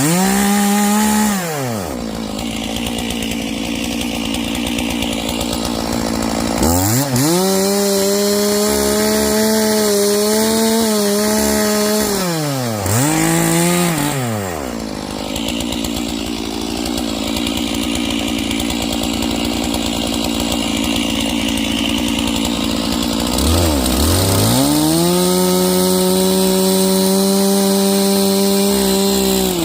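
Stihl MS461 two-stroke chainsaw cutting Douglas fir logs, revved to full throttle in several long runs, its pitch dropping away between them.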